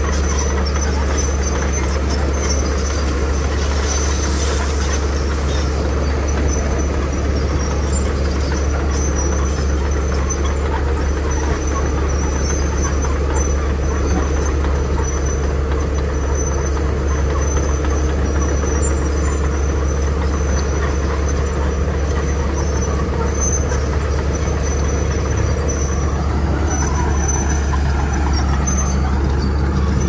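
Steady drone of heavy diesel earthmoving machinery: a Komatsu crawler bulldozer pushing and spreading gravel, with road rollers and a grader working behind it. Faint high squeaks come and go over the engine noise.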